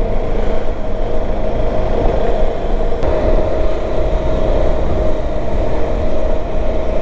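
KTM 390 Adventure's single-cylinder engine running at a steady pace as the motorcycle is ridden along, with a constant low wind and road rumble on the microphone.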